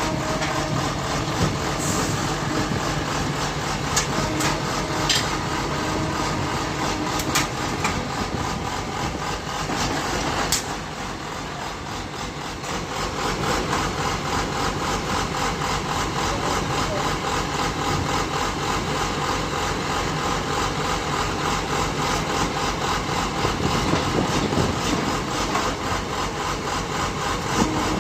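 Engine of a remote-controlled water-well drilling rig running steadily. It eases off briefly about ten seconds in, then picks back up.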